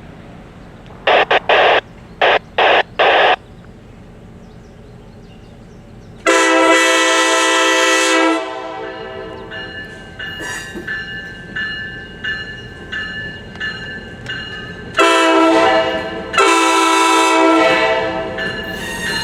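Diesel locomotive air horn sounding three long blasts: one about six seconds in and two close together near the end, with high steady tones and rail noise from the moving train between them. About a second in there are six short noisy bursts.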